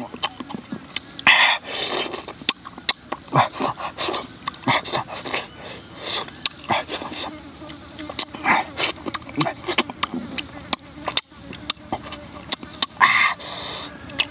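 Close-up eating sounds: chewing, lip-smacking and many short sharp clicks as cooked eel is bitten and picked apart by hand. A steady high insect trill runs underneath.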